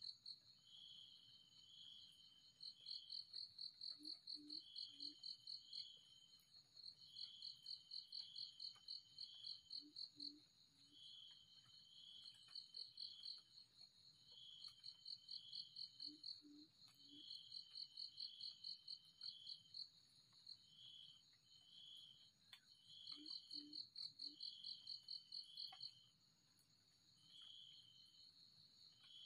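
High-pitched insect chorus: one insect trills in rapid pulses in runs lasting a second or two, while another gives lower paired chirps. A faint low three-note call recurs about every six seconds.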